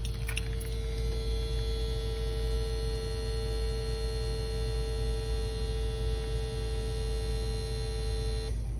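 Steady electrical buzz from a Gen 2 Toyota Prius, an even tone with many overtones, over a low rumble. It cuts off suddenly near the end.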